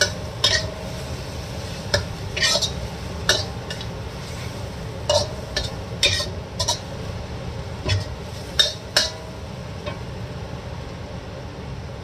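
Metal spatula scraping and clanking against a steel wok while stir-frying vegetables and egg, in irregular strokes that die away about nine and a half seconds in. A steady low rumble runs underneath.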